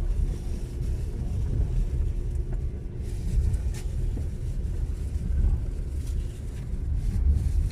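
Passenger train running: a steady low rumble with a few faint clicks.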